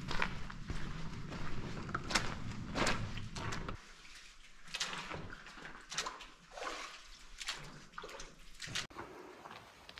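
Footsteps splashing and squelching through shallow creek water and wet sand at a walking pace, one to two steps a second.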